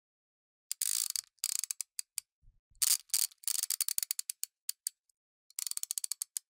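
Sound effect for an animated logo: quick trains of light, sharp mechanical clicks and ratchet-like ticks, broken by a couple of short swishes. There is a soft low thud about two and a half seconds in.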